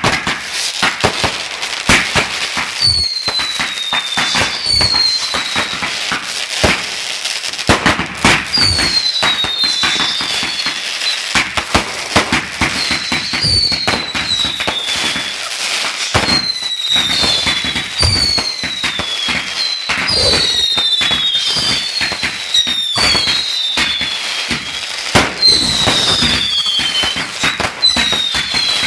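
A fireworks barrage: a continuous run of bangs and crackling, and from about three seconds in, short falling whistles repeating every second or two as whistling shots go up.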